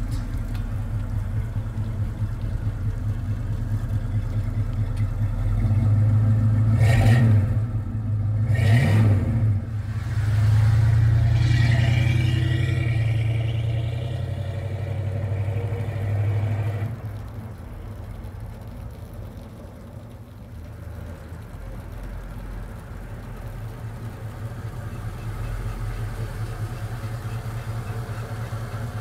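1977 Ford Maverick Grabber's engine running at low speed, then revving with two rising-and-falling surges about seven and nine seconds in as the car moves off. The sound grows quieter as the car drives away and louder again as it comes back toward the listener.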